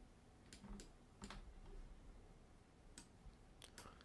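Near silence broken by a handful of faint, scattered clicks from a computer keyboard and mouse.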